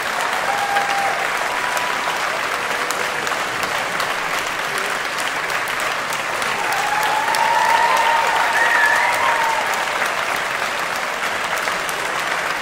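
Audience applauding steadily after an orchestral performance, the clapping swelling a little around eight seconds in.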